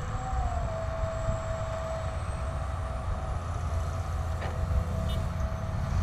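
Distant construction machinery, a hydraulic excavator and a dump truck, running: an uneven low engine rumble with a faint steady whine held over it. One brief click falls about four and a half seconds in.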